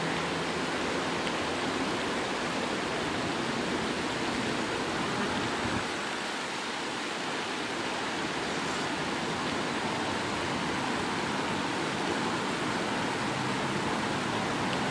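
Steady rushing hiss of outdoor background noise, with no distinct events.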